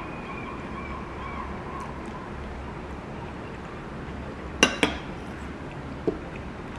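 Spoon clinking against a ceramic plate while scooping food, two sharp clinks in quick succession about four and a half seconds in and a softer knock about a second later. Steady background hiss throughout, with a faint wavering tone that fades out in the first two seconds.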